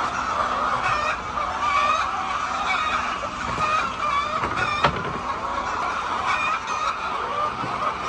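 A large poultry flock calling all at once: a dense, continuous chorus of overlapping clucks and squawks, with one sharp click a little before five seconds in.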